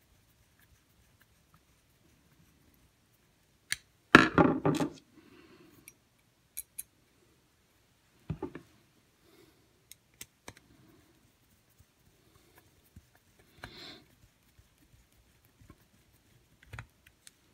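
Dishwasher water inlet valve being reassembled by hand: scattered clicks and scrapes of a screwdriver and screws against the metal bracket and plastic valve body, with a louder clatter lasting under a second about four seconds in.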